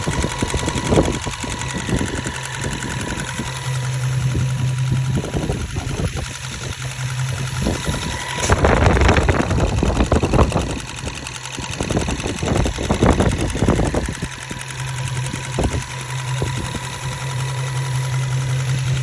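Infiniti Q50's 3.7-litre VQ37VHR V6 running, with a steady low hum and repeated sharp ticking, busier and louder for several seconds in the middle. The owner cannot tell whether the tick is the fuel dampers, lifter tick or a normal noise.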